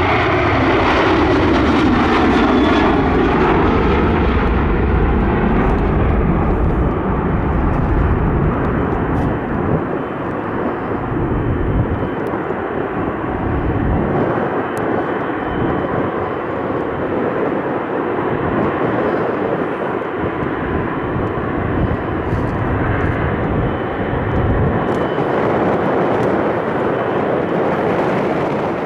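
Boeing 737-800's twin CFM56-7B turbofan engines at takeoff thrust as the jet lifts off and climbs away. The engine whine falls in pitch over the first couple of seconds as the aircraft passes, leaving a loud, steady low rumble that eases slightly later on.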